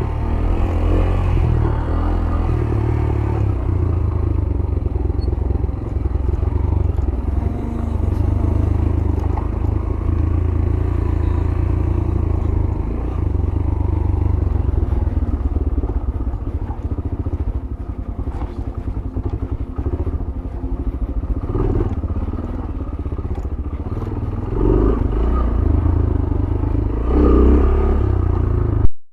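Yamaha YBR 125G's single-cylinder four-stroke engine running as the motorcycle rides down a rough off-road track, with the bike clattering over the uneven ground. Near the end comes a sharp knock, then the sound cuts out briefly.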